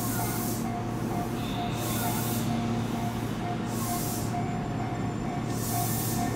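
A Tobu 30000 series electric train stands at the platform ready to depart, with a steady low hum. Over it a mid-pitched tone pulses about twice a second, and a short high hiss comes about every two seconds.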